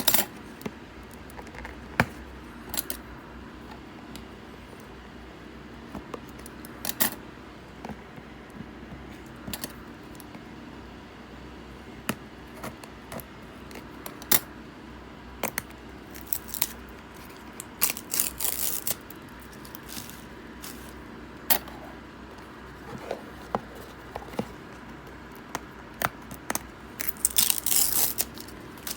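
Trading cards and pack wrappers being handled: scattered light clicks and snaps, with two short bursts of crinkling rustle, one a little past halfway and one near the end.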